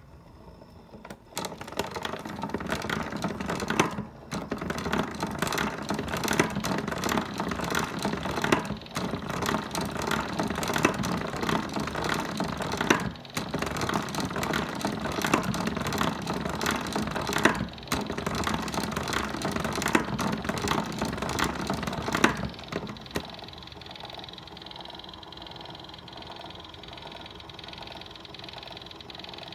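The winding crank of a The Crown gramophone with a Thorens two-spring clockwork motor is turned to wind the springs. It makes a continuous ratcheting clatter with short breaks about every four or five seconds. At about 22 seconds in the clicking stops, and a quieter, steady whir of the spring motor and governor turning the turntable is left.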